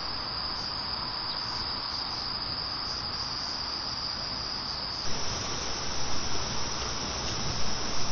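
Crickets chirping in a steady, continuous high trill. About five seconds in, the trill steps slightly higher and low, uneven bumps join it.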